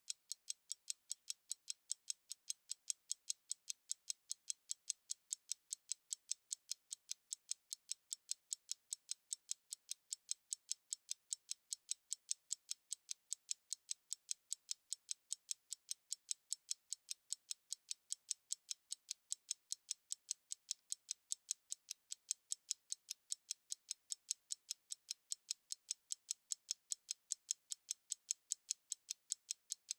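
Analog stopwatch ticking steadily, about five crisp, light ticks a second.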